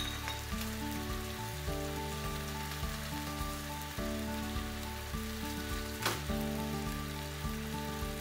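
Beef and onion sizzling in a frying pan, an even crackling hiss, under background music of held chords that change every second or two. A sharp click about six seconds in.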